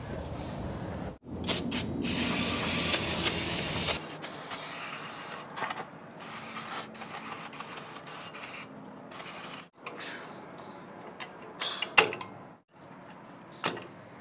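A hiss of spray for about two and a half seconds, then scattered metal clinks and scrapes of hand tools against a pickup's rear drum-brake parts.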